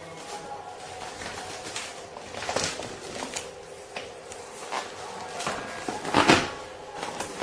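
Handling noises: a scattered series of clicks, light knocks and rustles, with a sharper knock about six seconds in, over a faint steady hum.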